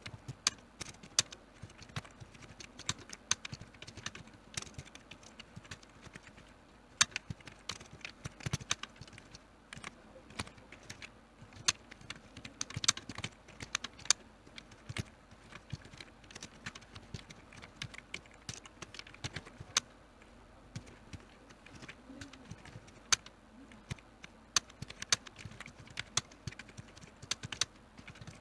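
Typing on a computer keyboard: fast, irregular key clicks, several a second, with a few louder keystrokes and brief pauses.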